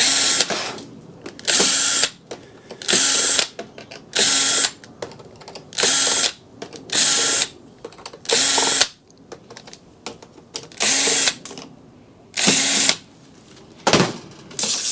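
A cordless power drill/driver running in about ten short bursts, roughly one every second and a half, backing out screws one after another from a metal power-supply casing.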